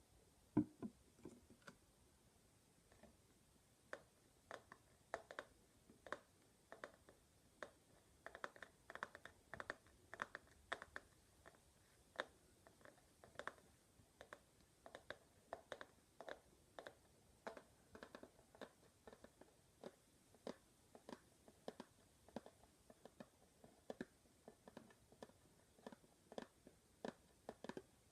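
Quiet, irregular ASMR tapping: light, sharp taps and clicks, about two or three a second, coming thicker for a few seconds in the middle.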